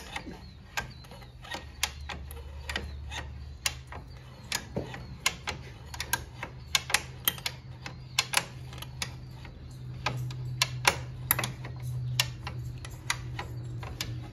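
Come-along ratchet clicking as its handle is worked back and forth, about two clicks a second, tightening the pull on a manure spreader's broken webbing chain to drag it back into line. A low steady hum runs underneath.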